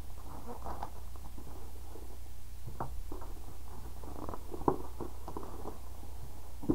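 Plastic shrink wrap crinkling and tearing as it is stripped off a cardboard model kit box, with a few sharp knocks of the box being handled, the loudest near the end.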